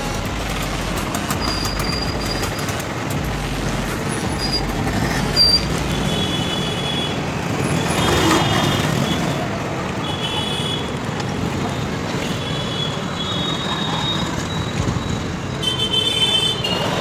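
Street traffic heard while riding a bicycle: steady road noise, with vehicle horns beeping several times from about six seconds in.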